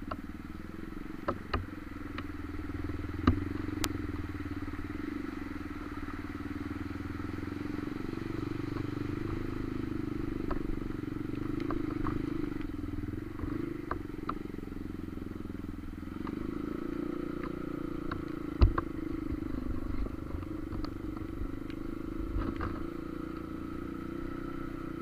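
Honda CRF trail motorcycle engine running steadily while riding, its pitch rising and falling a little with the throttle. A few sharp knocks stand out, the loudest about three quarters of the way through.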